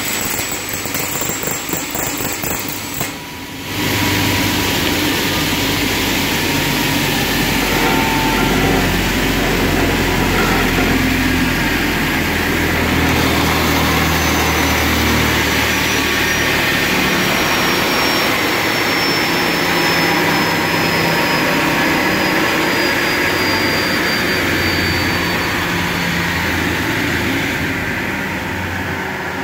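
Cut-off saw for roller-shutter boxes running, its blade sawing into a thin painted sheet-metal box profile. It dips briefly about three seconds in, then gives a loud steady cutting noise with a slowly falling high whine, easing near the end.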